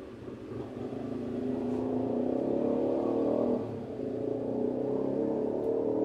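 A motor running with a steady humming tone, growing louder over the first two seconds and dipping briefly about halfway through.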